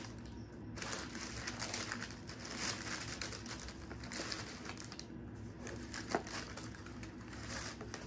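Tissue paper rustling and crinkling as it is unfolded and pulled back inside a cardboard shoe box, with a brief squeak about six seconds in.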